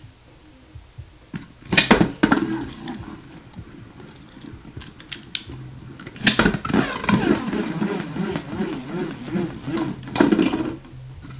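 Beyblade spinning tops launched into the plastic Metal Fury Destroyer Dome stadium: a sharp clatter as one lands about two seconds in, another about six seconds in, then a whirring, scraping spin whose pitch wobbles up and down as it circles the dome, ending in a last clatter near the end.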